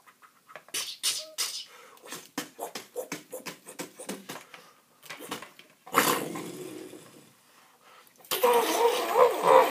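Mouth-made fight sound effects: a run of quick clicks and hit noises, a hissing blast about six seconds in that fades out, then a loud drawn-out voiced growl near the end.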